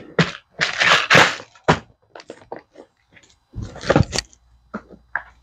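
Plastic clatter as clear organizer cases full of small parts are pushed into the lid of a plastic toolbox: a run of sharp clacks and knocks with brief rattles, and a heavier knock about four seconds in.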